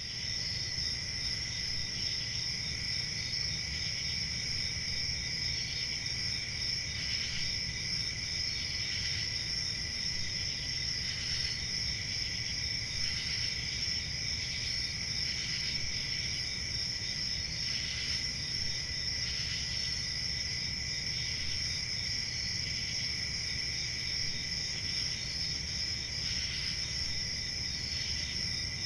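Crickets chirping steadily in a continuous night chorus, with a faint low background rumble.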